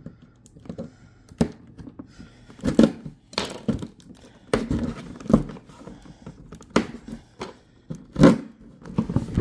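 A cardboard shipping box being cut open and handled: irregular thunks, scrapes and tearing of tape on the cardboard, with the loudest knock about eight seconds in.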